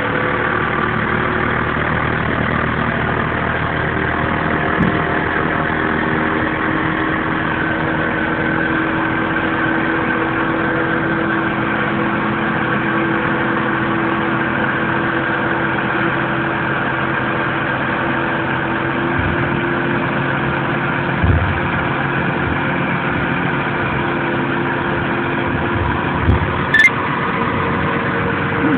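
Diesel engine of a hook-lift truck running steadily as it drives the hydraulic arm hauling a bin loaded with oil palm fruit onto the truck, with a few short knocks in the last third.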